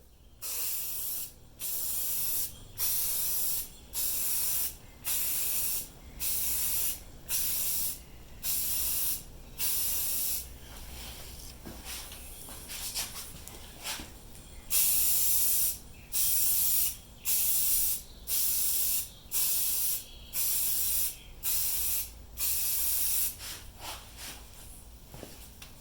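Aerosol spray can of Rust-Oleum 2X Ultra Cover paint-and-primer hissing in short repeated bursts, about one a second, as paint coats go on a plastic grill. The bursts pause for a few seconds midway, then resume.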